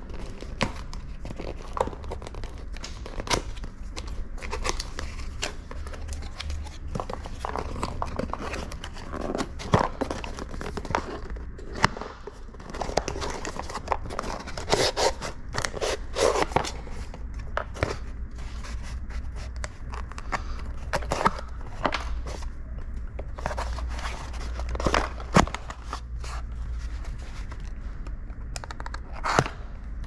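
Cardboard packaging being opened by hand: a seal sticker picked and torn off the tweeter box, then a cardboard inner box slid out and its flaps opened. The sound is tearing, rustling and scraping with many scattered sharp clicks, over a low steady hum.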